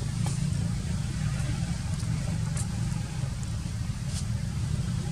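Steady low rumble with a few faint, short high ticks above it.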